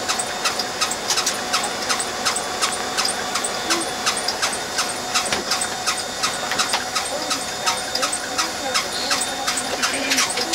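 Inside a Keifuku limousine bus pulling away from the stop: the engine runs under a steady whine, with a sharp regular ticking about three times a second throughout.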